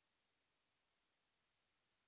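Near silence: only a faint, even hiss with no audible events.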